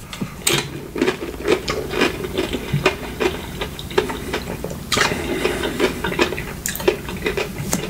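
Close-miked eating sounds: a quick, irregular run of crunches and clicks, with a louder cluster about five seconds in.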